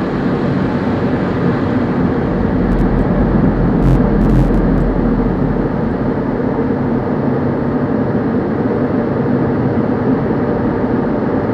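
Water spray from an automatic tunnel car wash pelting the windshield and body of the car, heard from inside the car as a steady loud rushing. A few short clicks come about three to four seconds in.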